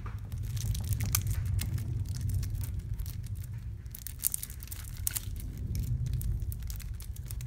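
Wrapping being torn and crinkled open on a deck of game cards: a run of irregular rustles, crackles and small tears, over a low steady hum.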